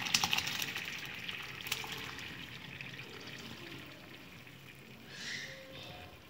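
Hot rice cooking water poured from a steel pot through a perforated stainless steel colander as boiled basmati rice is drained. The splashing pour is loudest at first and dies away over about two seconds into a quieter trickle as the water runs out through the holes.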